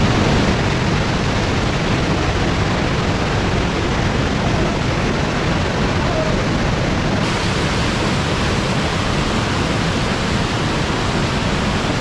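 Fast-flowing mountain stream rushing over boulders in a narrow rock gorge: a loud, steady wash of white-water noise.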